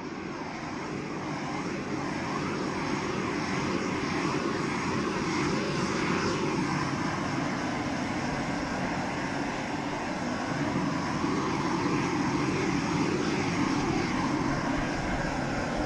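Propane shrink-wrap heat gun burning steadily, a continuous rushing flame noise as it heats and shrinks the plastic boat cover.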